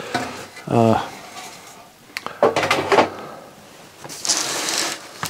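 The CD player's sheet-metal top cover being handled and put aside: knocks and clanks, with a sliding scrape near the end.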